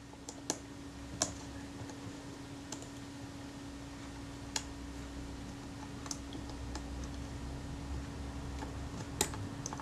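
Scattered small sharp clicks and taps of metal camera parts and tools being handled on a workbench, about eight spread irregularly, over a steady low hum.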